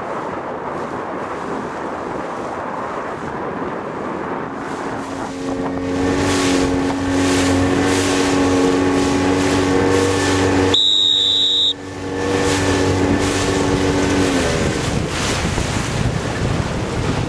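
Wind buffeting the microphone over choppy sea water. From about five seconds in, a motorboat engine runs at a steady pitch over the wind. There is a brief dropout about eleven seconds in, and the engine note falls away about fourteen seconds in.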